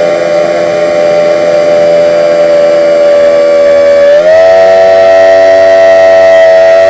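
Electric RC plane's brushless motor and propeller whining steadily at one high pitch, then rising to a slightly higher steady pitch about four seconds in as the throttle is opened a little.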